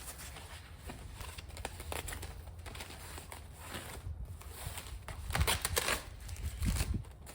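Rustling and crinkling handling noises with a few small clicks, loudest a little past the middle.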